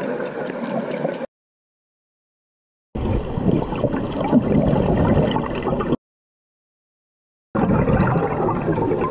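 Underwater water noise picked up by a GoPro camera on a scuba dive, in three stretches cut apart by dead silence: the first ends about a second in, the second runs from about three to six seconds, the third starts near the end.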